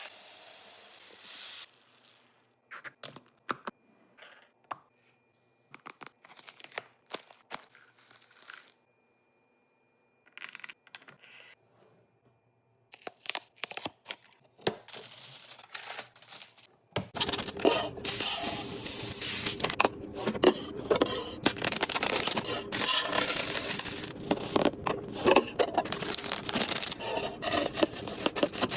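Food packaging and containers being handled while restocking a fridge: scattered small clicks and knocks with quiet gaps, then from about 17 seconds in a dense, continuous stretch of rustling packaging with many small clicks.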